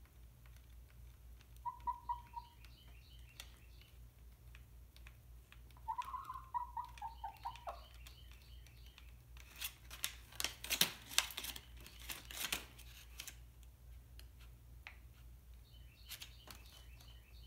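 A chicken gives a short call, then a longer run of notes falling in pitch, followed by a spell of scattered taps and rustles from it moving and pecking about the paper-lined crate. A faint steady hum lies underneath.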